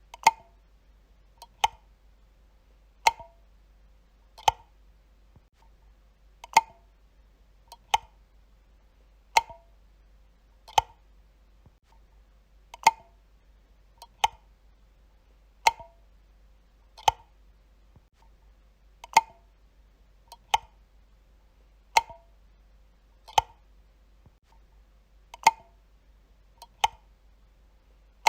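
Wall light switch being flicked over and over, a sharp click about every one and a half seconds, each followed closely by a fainter click.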